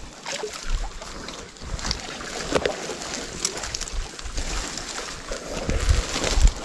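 Wind rumbling on the microphone, stronger near the end, with scattered small clicks and rustles.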